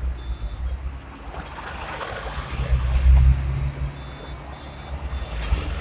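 Inside a Hong Kong tram at the front exit: a low, steady rumble of the tram and street traffic that swells to its loudest near the middle, with short high beeps from the fare card reader, once just after the start and again about four seconds in.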